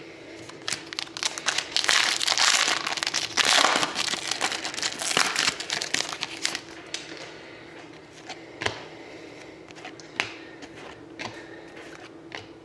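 Plastic card pack wrapper being torn open and crinkled for about five seconds, loudest early on, followed by a few scattered light clicks and taps as cards are handled.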